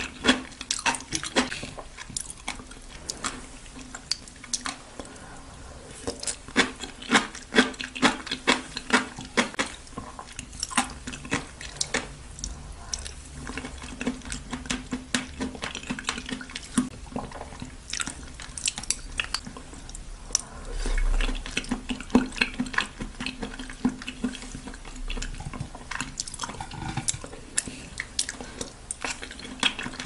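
Close-miked wet eating sounds of raw oysters being chewed and slurped: a dense, irregular run of squishy clicks and smacks. There is a short low rumble about two-thirds of the way in.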